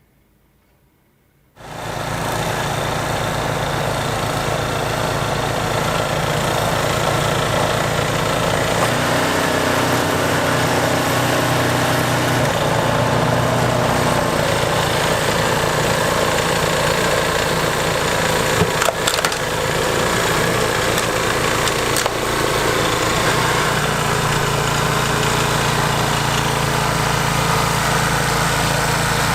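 A gasoline snow blower engine running steadily under a broad rushing noise, starting abruptly about a second and a half in. Its low engine note changes briefly about a third of the way through.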